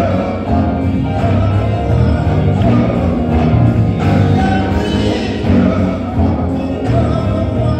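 Live gospel music: a band playing with singing over it.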